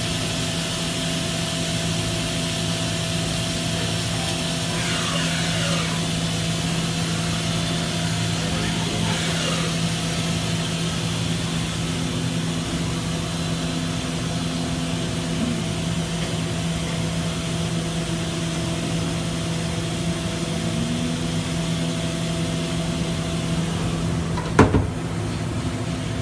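Steady machine hum with constant tones under a noisy rush, and one sharp knock near the end.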